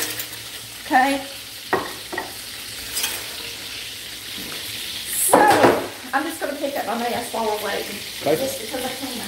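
Onion rings frying in a pan of hot grease, a steady sizzle throughout, with a couple of sharp knocks early on as the air fryer basket is handled.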